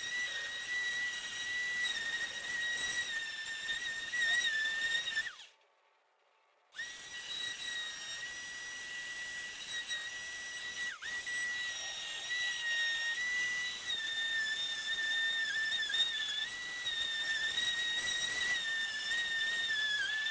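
High-pitched power-tool whine from sanding Bondo body filler smooth, its pitch dipping slightly as the tool bears on the work. It stops for about a second and a half partway through, then resumes.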